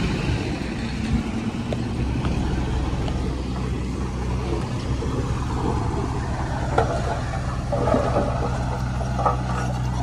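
Heavy diesel earthmoving machinery running steadily under load, with a few short metallic clanks in the second half.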